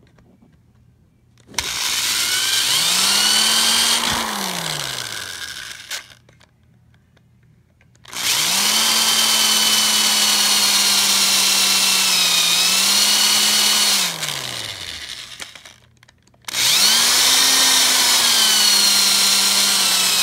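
Power drill run three times, each time spinning up, running a few seconds and winding down, as it bores into the case of a Tyco train controller to free its switch. In the second run the motor's pitch sags briefly near the end before it is let off.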